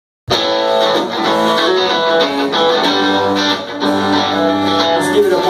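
A live band playing, led by strummed acoustic and electric guitars over bass guitar. The music cuts in abruptly a moment in.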